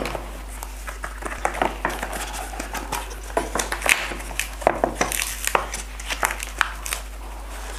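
Cardboard packaging being handled: a black cardboard insert lifted out of an earphone box, with scattered rustles, scrapes and light taps.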